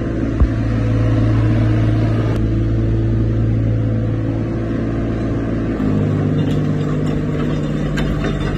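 Komatsu PC35MR mini excavator's diesel engine running steadily, with a single knock just under half a second in. About six seconds in, the engine note shifts slightly and light clicking joins it.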